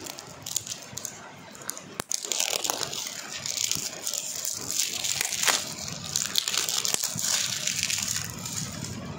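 Flat polymer clay disc beads shifting and rattling inside a clear plastic compartment box as it is handled and tilted: a dense rustle full of small clicks, starting about two seconds in.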